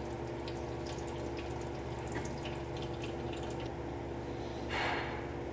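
Engine oil dripping and trickling into a drain pan from the freshly removed oil filter's mount, over a steady background hum, with a brief hiss near the end.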